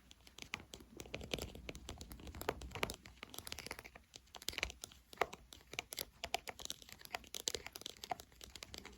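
Close-up ASMR ear-cleaning sounds: dense, irregular crackling and scratching right on the microphone, standing in for loosened earwax being worked out of the ear.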